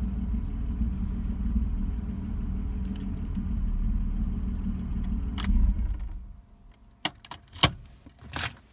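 BMW M3 engine idling at about 1,000 rpm, an idle the owner calls not perfect, then switched off about six seconds in. Keys jingle in a few short bursts afterwards.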